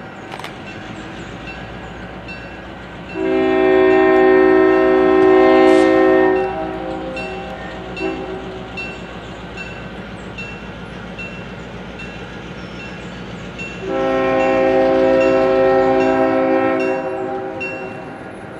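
Diesel locomotive's air horn sounding two long blasts of about three seconds each, roughly ten seconds apart, as it approaches a grade crossing. Under the horn run the steady low rumble of the locomotive's engine and the regular ding of the crossing bell.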